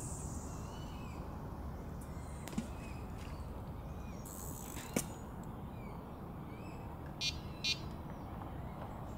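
Lakeside ambience: a steady low wind rumble on the microphone with small birds chirping. A couple of sharp clicks come midway, and two short high electronic beeps about seven seconds in.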